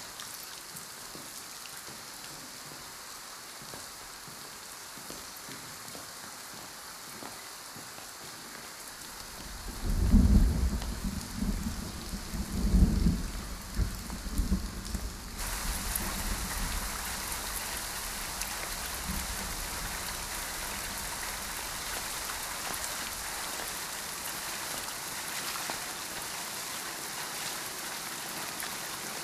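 Rain, muffled at first. About ten seconds in comes a long roll of thunder, the loudest sound. At about fifteen seconds the rain turns suddenly louder and closer: a heavy downpour splashing on paved ground.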